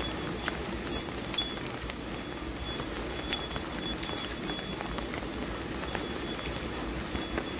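Light rain falling: a steady patter broken by irregular sharp taps of drops landing close by.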